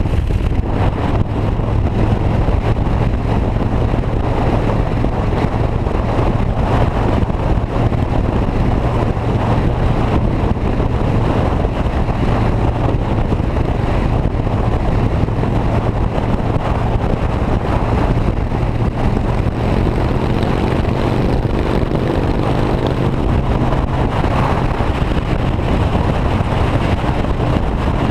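A vehicle's steady running drone: an even low hum with rushing noise and some wind on the microphone.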